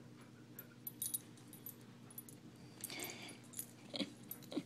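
Faint jingling and small clicks as a beagle moves about, with a brief soft sound from the dog near the end.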